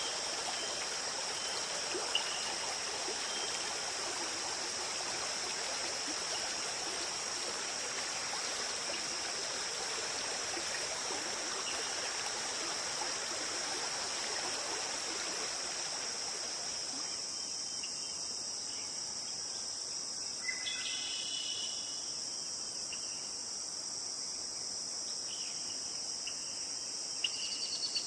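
Running stream water with a steady high insect trill over it. About sixteen seconds in, the water sound falls away, leaving the insect trill and a few short chirps.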